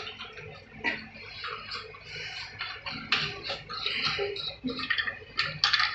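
Irregular light plastic clicks and scrapes as the white plastic inlet valve of a Jaquar concealed flush cistern is handled and its threaded parts are turned to open it.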